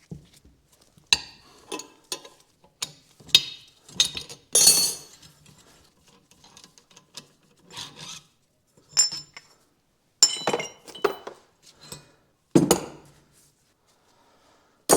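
Metal tools and parts being handled while working on a car's rear trailing arm: irregular scraping, rubbing and knocking, with a few sharp clinks that ring briefly.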